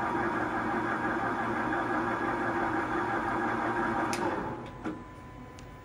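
Trak 1840CSS CNC lathe spindle running steadily in reverse at 440 RPM, a whirring machine sound with several steady tones. A little over four seconds in there is a click, the spindle winds down quickly and stops with a knock, leaving a faint steady hum.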